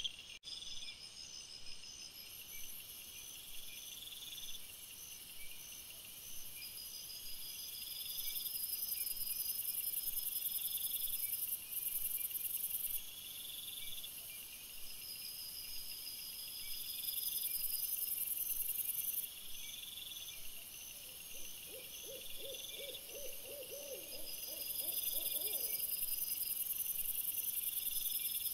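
High, pulsing chirps of night insects, several rhythms overlapping. About twenty seconds in, an owl gives a low quavering hoot lasting a few seconds.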